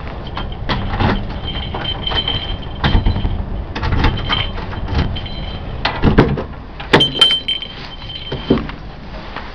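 Keys, a lock and an apartment front door being worked: an irregular run of clicks, rattles and knocks, loudest about six to seven seconds in.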